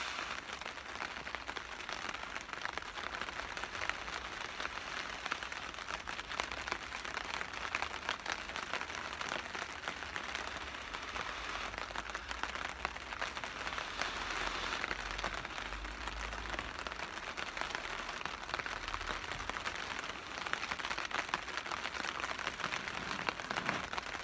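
Steady rain pattering on a tarp overhead, a dense even crackle of drops, with low breathy rushes as an ember in a tinder bundle is blown on to bring it to flame.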